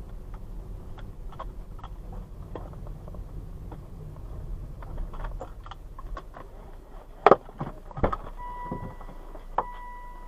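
Small clicks and rattles in and around a car, then two loud knocks about seven and eight seconds in, after which a car's electronic warning chime starts and keeps sounding.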